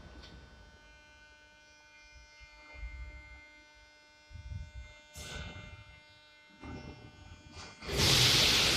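Standing retro metro train of 1935 style humming steadily with a quiet electrical hum and a few faint low thumps; about eight seconds in a loud hiss of compressed air starts, as the train readies to pull away.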